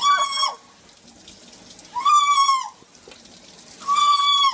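A pet bird calling three times, about two seconds apart; each call is a loud, steady-pitched note lasting about half a second.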